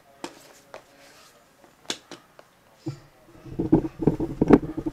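A hand brushing and rubbing across a marble tabletop. A few light clicks and taps come first, then a dense scratchy rubbing, the loudest part, fills the last second and a half.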